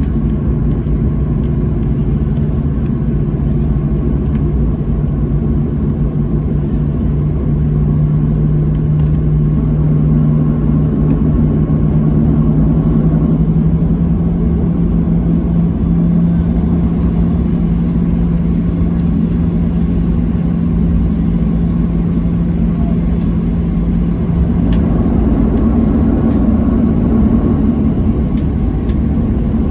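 Cabin noise of a Boeing 737-700 taxiing, heard from inside near the wing: its CFM56-7B jet engines at taxi power give a loud, steady rumble. Over it a hum slowly rises in pitch and stops about 25 seconds in.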